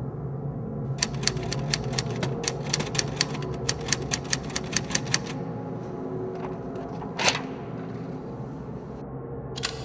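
Manual typewriter keys clacking in a quick run of about six strikes a second for some four seconds, then a single louder clack a couple of seconds later, over a low steady hum.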